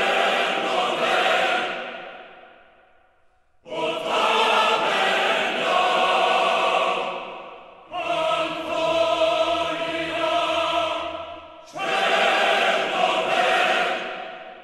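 Background music: a choir chanting in four long, sustained phrases, each beginning abruptly and fading away, with a low drone joining beneath the third phrase.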